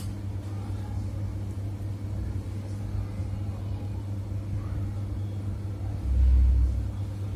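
A steady low hum with no speech, and a brief low rumble about six seconds in.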